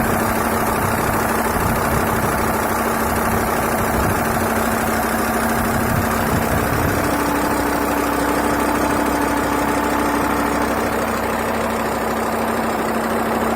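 Audi A6 C4 2.5 TDI five-cylinder diesel idling with a steady knock. Rebuilt injectors and hydraulic lifters, a sound vacuum pump and adjusted injection timing have not cured the knock.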